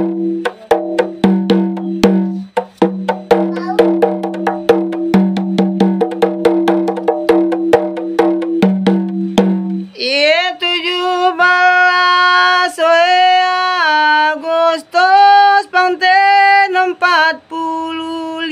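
Hand-held frame drum struck rapidly with the fingers: a quick, dense run of strokes over a steady ringing pitch, with short breaks, for about ten seconds. Then a man starts singing a Sumbawan lawas in long held notes that slide between pitches, with only occasional drum strokes.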